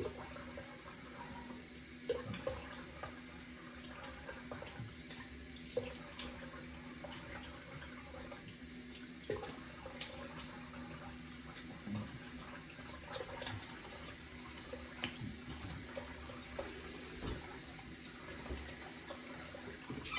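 Water running steadily from a tap into a sink, with small splashes and knocks, shut off abruptly at the end.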